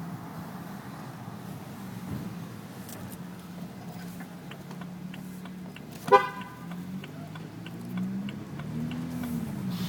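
BMW 335i rolling with a steady low drone, faint short high-pitched chirps repeating through the second half, and one loud, brief shrill tone about six seconds in. These are typical of the screech the owner traces to the front left wheel.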